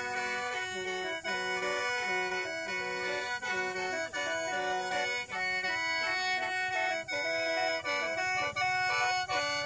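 Khaen, the Lao bamboo free-reed mouth organ, playing a lively melody over steady held drone notes.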